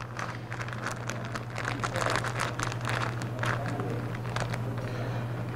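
Crinkling and rustling of fly-tying materials handled by hand as a marabou feather is picked out for a tail: many small crackles in quick succession. A steady low hum sits under it.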